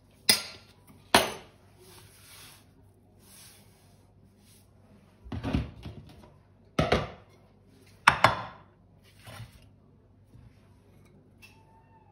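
Kitchen utensils and dishes clinking and knocking: a few separate sharp knocks, two close together at the start and a cluster from about five to nine seconds in.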